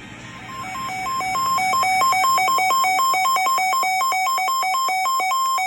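Weather alert radio alarm sounding for a severe thunderstorm warning: an electronic two-tone warble that flips rapidly between two pitches, getting louder over the first couple of seconds and then holding steady.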